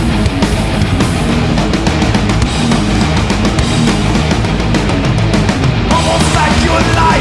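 Live heavy metal band playing an instrumental passage: distorted electric guitars, bass and fast, driving drums, with a lead guitar line coming in about six seconds in.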